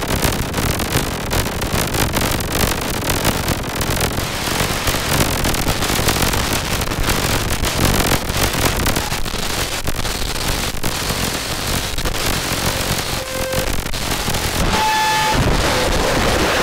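Live electronic noise from a modular synthesizer: a loud, dense stream of crackling clicks and static. About fifteen seconds in it turns steadier, with a few short held tones over it.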